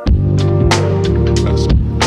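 Background music with a steady beat and heavy bass, coming in loudly right at the start.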